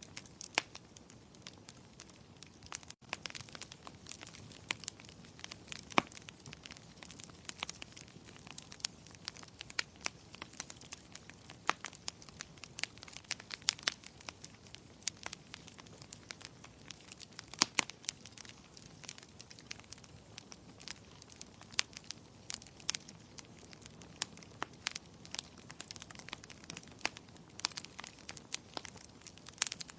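Wood fire burning in a fireplace: frequent irregular sharp pops and crackles over a soft, steady low rush of the flames.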